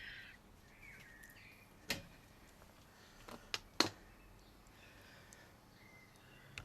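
A few short, sharp metallic clicks and knocks from hand tools on the rear suspension bolts, one about two seconds in and three close together nearly four seconds in, over faint bird chirps.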